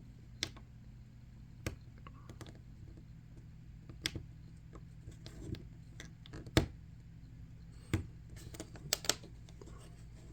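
Irregular small clicks and taps from a hobby blade and fingers working the axles and wheels out of a die-cast toy car's base, about ten sharp ticks spread over several seconds, over a low steady hum.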